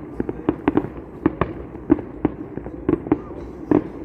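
Fireworks going off: a rapid, irregular series of sharp bangs, several a second.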